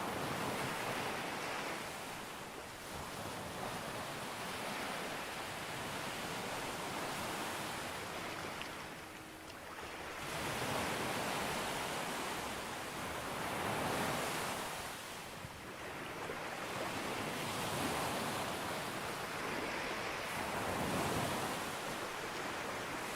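Sea waves breaking and washing up on a beach: a continuous rush of surf that swells and eases as each wave comes in, with short lulls between sets.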